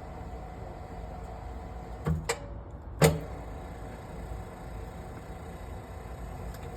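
Matsumoto Kikai PS-4F-1 welding positioner running with a steady low hum, with two sharp clunks about two and three seconds in, the second the louder.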